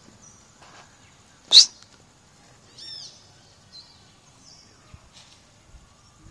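A bird calling, one short arched chirp about three seconds in, the same call repeating every few seconds over a faint steady high hiss. About a second and a half in comes one loud, sharp crack.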